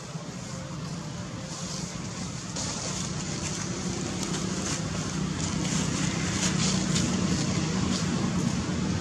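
A motor vehicle's engine hum with a steady hiss, growing gradually louder.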